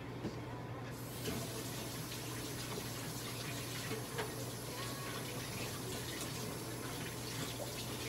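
A steady rushing hiss, like running water, starts suddenly about a second in over a low steady hum.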